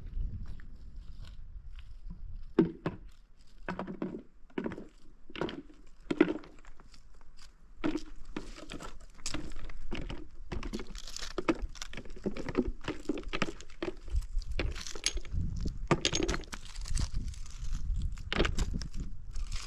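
Irregular footfalls crunching on rough ground, coming closer together after about eight seconds. A low rumble sits underneath, strong at the start and again near the end.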